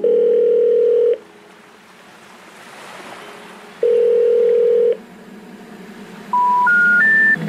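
Telephone tones over a soft hiss: a steady beep about a second long, a pause, a second steady beep, then near the end three short rising notes, the special information tone that comes before a 'number not in service' message.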